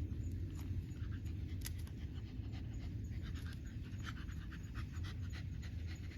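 Shiba Inu panting, with small scattered clicks throughout.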